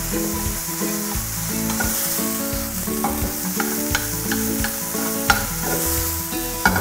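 Chicken mince frying and sizzling in a pan with a steady hiss while a metal spoon stirs and breaks it up, scraping and clicking against the pan.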